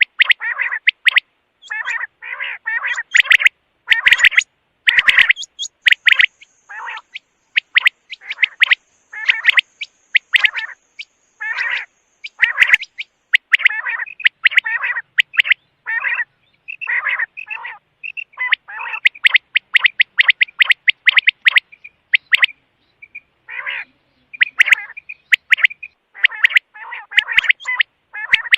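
Quail calling: short, sharp chirping calls in quick clusters, repeated over and over with brief gaps.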